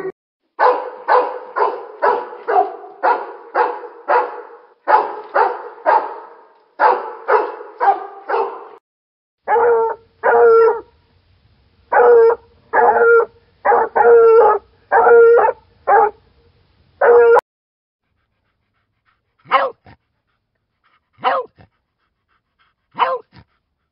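A sequence of barking from different dog breeds. First a German Shepherd barks quickly, about two barks a second, for about eight seconds. Then a Basset Hound gives about eight longer barks about a second apart, and near the end a Beagle barks four times with gaps between.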